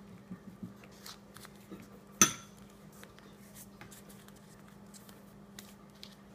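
A single sharp clink of a kitchen utensil striking a dish, with a brief ring, about two seconds in, amid faint clicks and light handling noises while the pasteles are wrapped.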